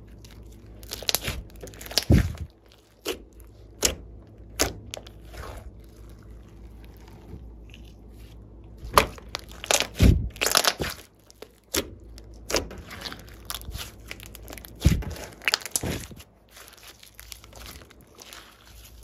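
Glossy slime being squished and stretched by hand, giving irregular sticky pops, clicks and crackles, with the busiest bursts near the start, about halfway through and around three quarters of the way in.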